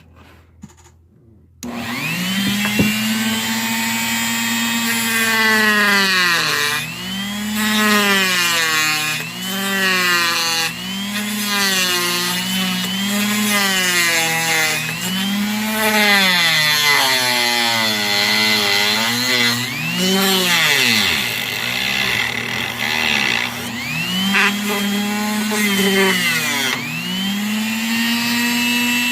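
Electric power saw cutting plastic. The motor starts about two seconds in and then runs on with its pitch repeatedly sagging and recovering as the blade bites and frees, until it stops near the end.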